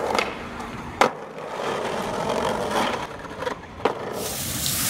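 Skateboard wheels rolling on a hard surface, with sharp board clacks about a second in and twice more late on, then a loud burst of rushing noise near the end.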